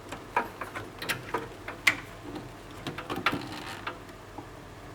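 Irregular light clicks and knocks of hard objects being handled, about a dozen of them, with the sharpest about two seconds in and another cluster a little past three seconds.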